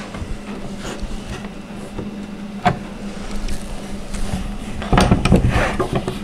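Doll crib parts knocking and scraping together as the bottom rail is worked onto the door pegs: a single sharp click about two and a half seconds in, then a cluster of knocks and rubbing near the end.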